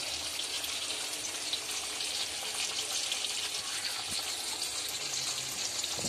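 Tamarind water poured steadily from a bowl into a hot pot of fried tomato-onion masala, a continuous splashing pour.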